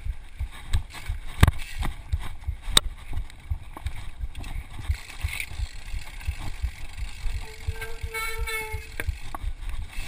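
Mountain bike rolling over rough singletrack, picked up by a chest-mounted camera: a continuous rattle of uneven thumps from the trail, with two sharp knocks in the first few seconds. Near the end a steady high-pitched tone sounds for about a second and a half.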